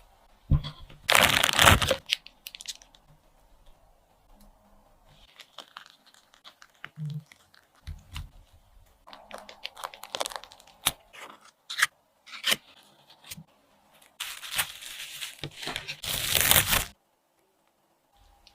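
Kitchen handling sounds from making a strawberry cake: bursts of crinkling, tearing and scraping with a few sharp knocks, stopping near the end.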